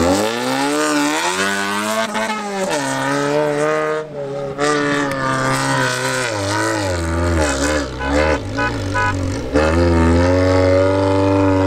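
Maruti Gypsy's four-cylinder petrol engine revving hard and repeatedly as the 4x4 spins its wheels and drifts in soft sand. The pitch climbs in the first couple of seconds, dips briefly about four seconds in, rises and falls quickly several times, then holds at high revs near the end.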